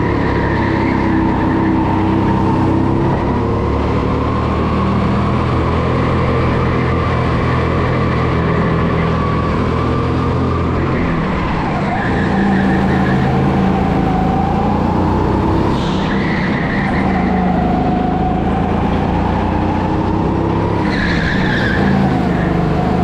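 Indoor rental go-kart's motor heard onboard at racing pace, its pitch rising and falling with speed through the corners, with tyres skidding and squealing in the turns.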